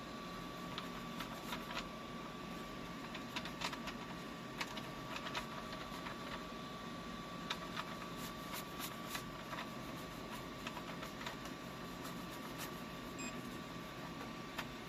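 Scattered light clicks and taps of small-parts hand work, most frequent in the first half, over a steady hum with a faint high whine.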